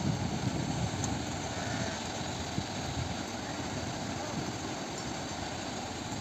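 Steady rushing of a fast white-water mountain river, with wind buffeting the microphone in an uneven low rumble.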